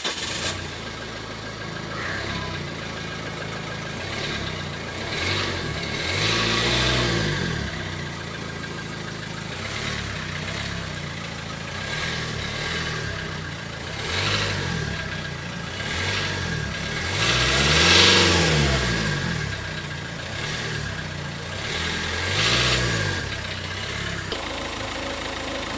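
Nissan Micra's 1.5-litre four-cylinder diesel engine, just started, idling with a diesel clatter and revved up and back down several times, the highest rev about two-thirds of the way through.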